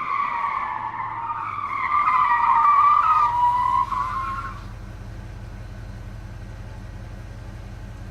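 A loud, wavering squeal like tyres skidding, sliding down in pitch over about four seconds, then a steady low hum that cuts off suddenly.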